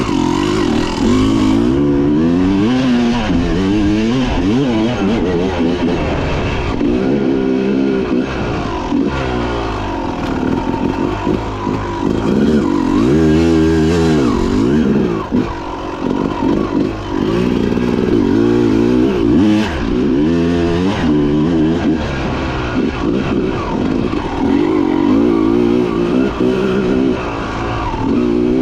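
Dirt bike engine running under way, its pitch rising and falling again and again as the throttle is opened and closed.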